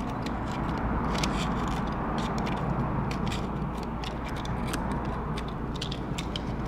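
Adhesive tape being trimmed along the edge of a replacement screen: irregular small clicks and scraping over a steady low hum.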